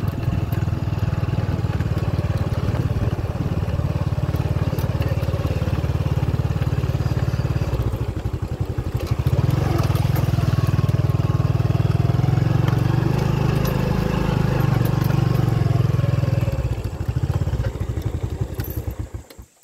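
Small motorcycle engine running as it is ridden slowly over a rough dirt track, easing off about eight seconds in and picking up again, then fading and cutting off abruptly near the end.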